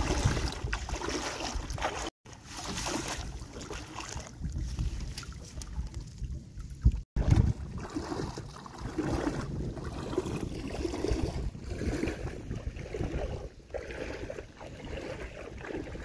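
Water splashing and sloshing around a person's legs as they wade through waist-deep floodwater towing a small boat, with wind buffeting the microphone. The sound cuts out briefly twice.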